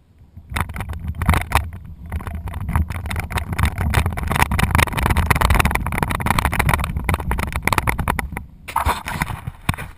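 Plastic wagon rattling and rumbling as it is pulled quickly over concrete, heard close up from the wagon itself. It starts about half a second in, eases briefly near the end, then picks up again.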